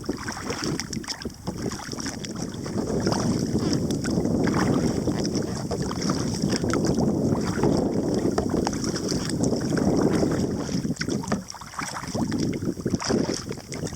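Kayak under way, with paddle blades dipping and splashing in the water, mixed with wind noise on the microphone.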